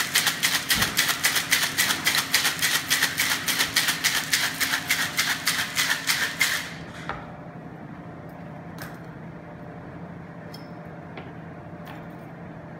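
Ice rattling hard in a metal cocktail shaker being shaken vigorously, an even rhythm of several strokes a second. It stops about six and a half seconds in, leaving a few light clicks.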